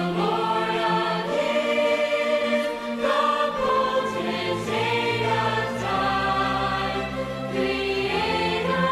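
Choral background music: a choir singing long held notes over a steady low bass note.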